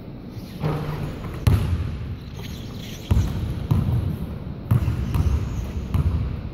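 A basketball bouncing on a hardwood gym floor: five or six separate low thuds at uneven intervals.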